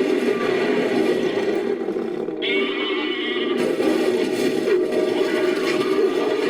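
Made-up creature roar sound effect, edited together from recorded animal roars and goat and sheep calls: a continuous rough roar with a sudden edit about two and a half seconds in.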